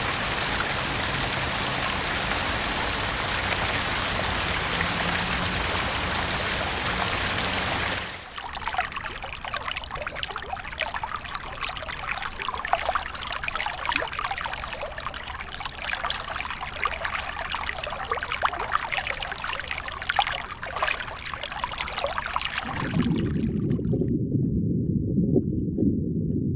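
Water running steadily for about eight seconds, then trickling and splashing in a crackly patter. Near the end it gives way to a muffled low sound with no treble.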